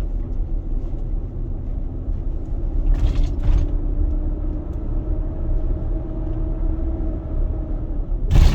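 2021 Nissan Armada's 5.6-litre V8 running with a steady low rumble and a tone that rises slowly in pitch, the engine noise the owner finds too loud. Two short rushes of noise break through, about three seconds in and near the end.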